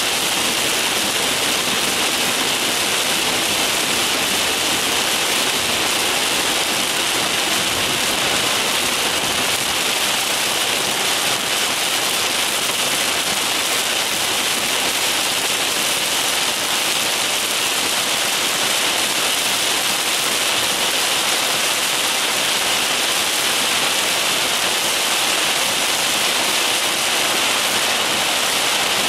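Heavy downpour from a thunderstorm beating on a car's roof and windshield, heard from inside the cabin as a steady, loud hiss.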